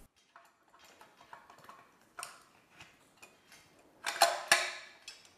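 Faint scattered clicks and ticks of small parts being handled as a depth-adjustment adapter is fitted to a Festool TS 55 R plunge saw and screwed to its base plate, with a louder cluster of sharp clicks about four seconds in.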